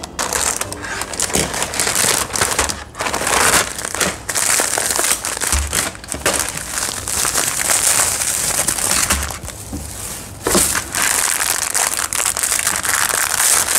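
Plastic packaging crinkling and rustling as it is handled: a poly courier mailer being slit open, then bubble wrap and small clear plastic bags being unwrapped. The crackling is dense and comes and goes with the handling.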